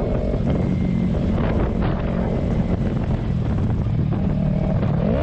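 Motorcycle engine running at a steady road speed, with wind rushing over the microphone. Near the end the engine note starts to rise as the revs climb.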